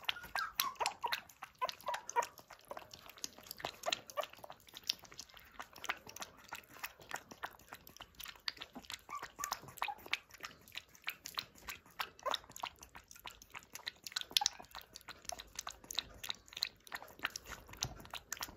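A puppy lapping milk from a steel bowl: a rapid, continuous run of wet clicking laps.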